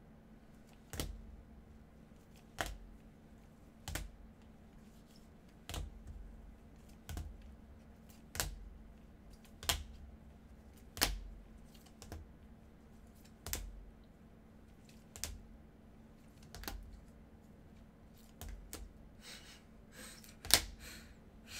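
Rigid plastic card holders clicking and tapping as trading cards in toploaders are handled one after another, a sharp click with a soft thud about every second and a half, with quicker handling and the loudest click near the end.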